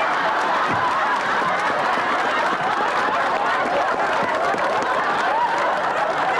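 Studio audience laughing loudly and steadily, with clapping mixed in.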